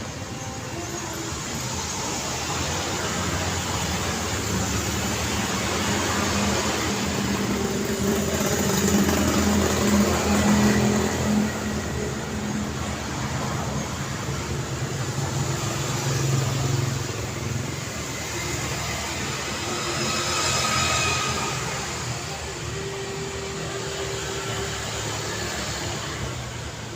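Busy city street traffic: vehicle engines and tyres passing continuously, swelling as a vehicle passes close about ten seconds in. A brief high tone sounds about twenty seconds in.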